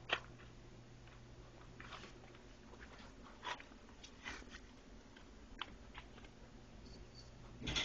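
A four-week-old kitten playing with a ball: scattered light taps and scuffs, a sharp click about the start and a louder cluster of knocks near the end, over a faint steady low hum.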